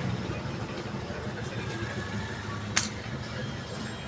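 Car engine running steadily at low revs, with a single sharp click a little under three seconds in.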